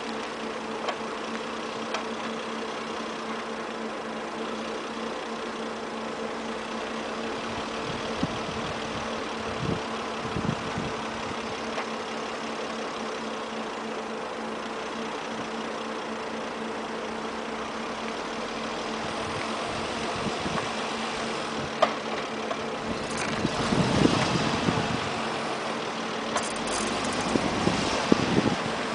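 Volvo S80 running, heard at the right door mirror: a steady hum with a few sharp knocks at irregular moments, getting louder and rougher in the last few seconds. The knocks are the strange knocking noise being investigated.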